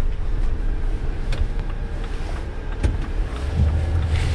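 Cargo van engine and road rumble heard from inside the cab as the van pulls away, with a few light clicks and knocks. The engine note rises about three and a half seconds in as it speeds up.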